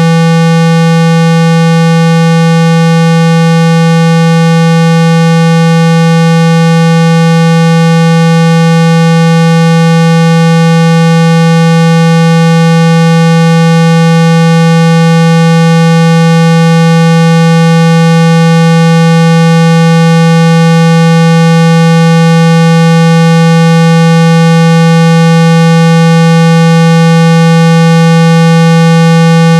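A loud, steady, unbroken 165 Hz tone, a speaker-cleaning frequency played to shake dust and water out of a phone's speaker.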